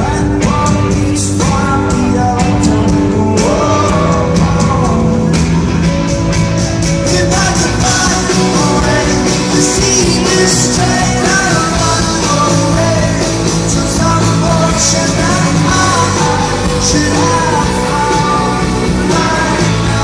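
Rock music with drums and singing.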